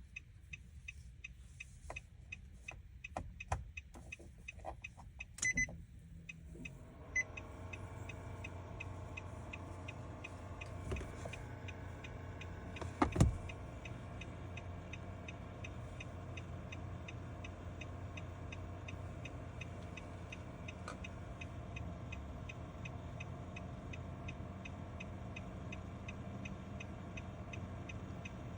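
Steady rapid ticking, about two to three ticks a second, inside a car during smart-key programming. A steady hum starts about six seconds in and holds, and a single louder knock comes about thirteen seconds in.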